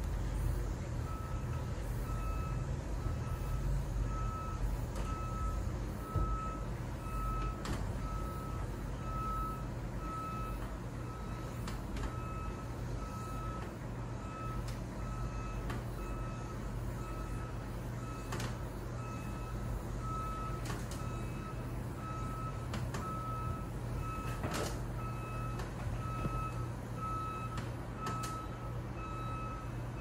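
Evenly spaced single-tone warning beeps repeat steadily as a cable car cabin moves into its docking station, over the steady low hum and rumble of the moving cabin. A few sharp clicks and knocks come through now and then.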